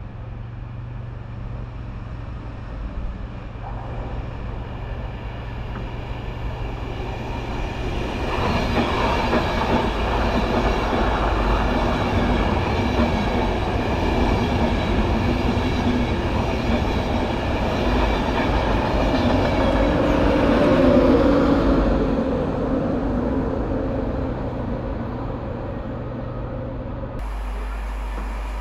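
English Electric Class 55 Deltic diesel locomotive and its train passing at speed. The sound builds over about eight seconds, stays loud for about a dozen more, then fades and cuts off suddenly near the end.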